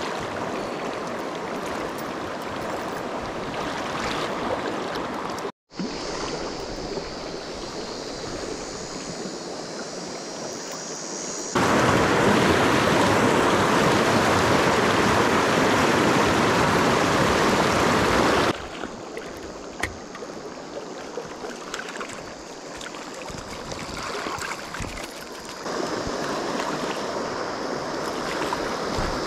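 Rain-swollen river running over stones in a steady rush, much louder for several seconds in the middle where it pours through whitewater rapids. A momentary gap about five and a half seconds in.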